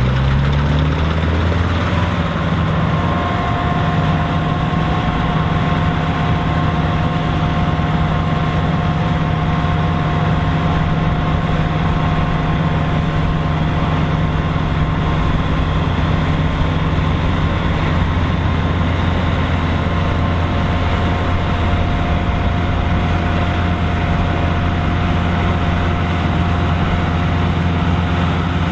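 Dronningborg D900 self-propelled combine running: the engine revs up over the first second or two, then runs steadily at high revs with a thin steady whine above it.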